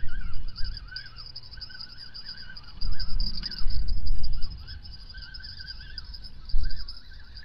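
Songbirds warble in the background over a steady high trill. Low rumbles of wind on the microphone come and go, loudest about three to four seconds in.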